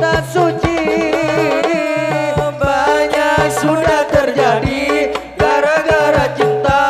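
Hadrah ensemble playing: frame drums (rebana) and a hand drum beat a brisk rhythm under a held, stepping melody line.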